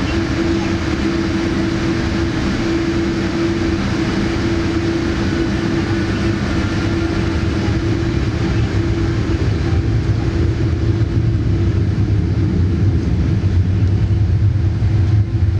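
Steady cabin noise of a Boeing 787 taxiing, a constant hum with one steady tone over it; a deeper rumble grows louder about ten seconds in.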